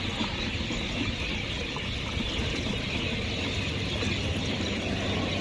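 Petrol pouring in a steady stream from a 20-litre can into a car's fuel tank, a continuous hiss.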